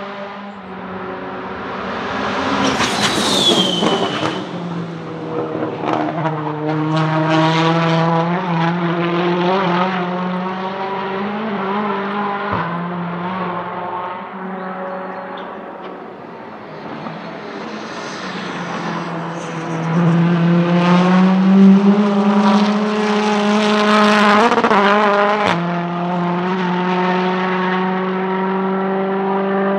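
Turbocharged 1.6-litre four-cylinder engines of Volvo S60 Polestar TC1 race cars accelerating hard and passing by, the engine note rising through each gear with sharp upshifts. It is loudest about two-thirds of the way in.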